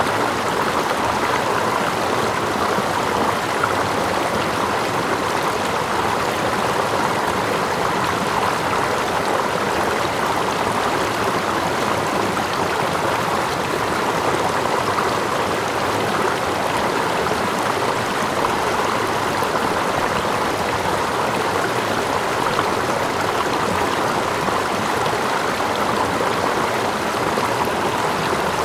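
Stream water running with a small waterfall behind it: a steady, even rush that does not change.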